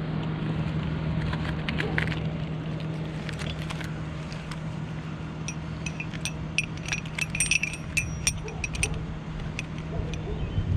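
Altec bucket truck's engine running steadily, with metal hardware clinking and clicking in quick bursts through the second half.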